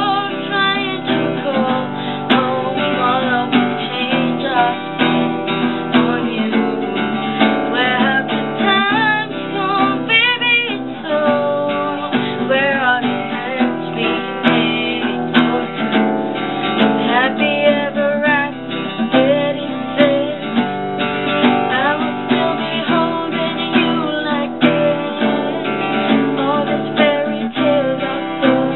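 Acoustic guitar music, strummed steadily.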